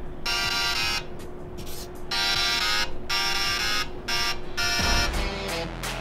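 Racing quadcopter beeping as it powers up after its battery is connected: three long, buzzy electronic beeps about a second apart over a faint steady hum. Music starts near the end.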